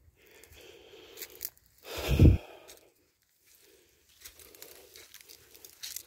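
A hiker's footsteps crunching on a dry dirt trail, with soft breathing and handling rustle. A loud low thump on the phone's microphone comes about two seconds in.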